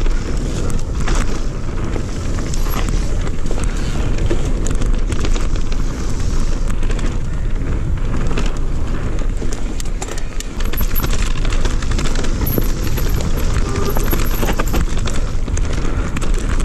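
Riding noise from an electric mountain bike rolling fast over a dirt singletrack: tyre rumble and frequent clicks and rattles from the bike over bumps, under heavy wind buffeting on the microphone.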